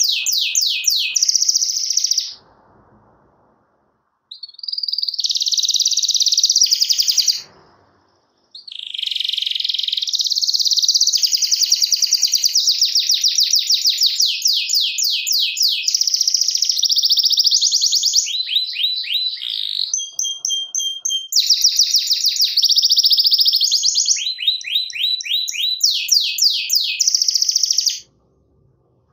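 Canary singing: long, loud runs of fast trills made of rapid repeated notes, broken by two short pauses in the first eight seconds, then near-continuous song that stops about a second before the end.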